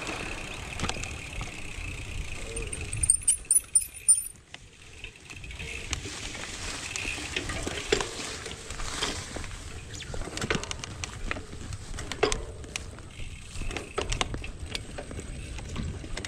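Polygon Bend R2 gravel bike ridden over a rough path, its parts rattling and clicking over the bumps, with a burst of harder jolts about three seconds in.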